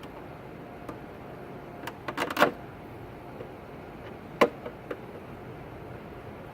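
Hand tools clinking against metal under a steady background hiss: a quick run of sharp clicks about two seconds in, then one louder click and a couple of fainter ones a little past four seconds.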